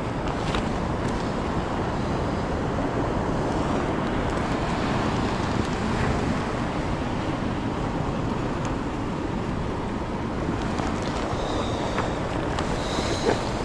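Steady wind buffeting the microphone over the wash of surf on the beach.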